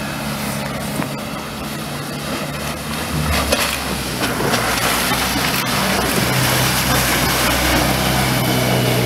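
A 20 hp Suzuki outboard motor running at speed on a small inflatable boat, its note shifting a couple of times, with the rush of water and spray that grows louder partway through.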